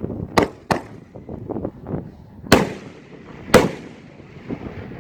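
Two canister banger firework shells fired together: two sharp launch pops close together near the start, then two loud bursting bangs about a second apart, each trailing off in an echo.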